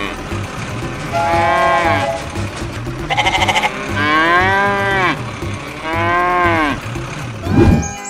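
Farm animal calls, four in turn: bleats and moos, each bending down in pitch at its end, one with a fast quaver. Background music with a steady beat runs beneath them, and there is a short sudden sound near the end.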